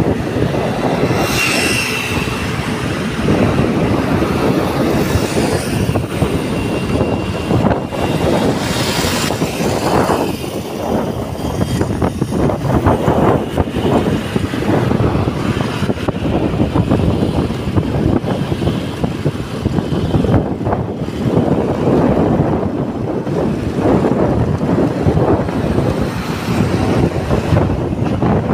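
Riding a motorcycle on a highway: wind rushing and buffeting on the microphone, mixed with road and engine noise, unevenly loud throughout.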